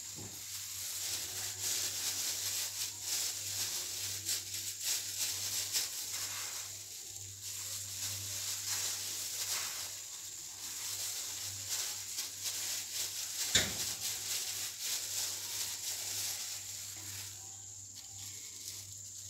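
Thin plastic gloves crinkling and rustling as hands press and roll breadcrumbs onto a scotch egg, with a steady low hum underneath. A single sharp tap stands out about two-thirds of the way through.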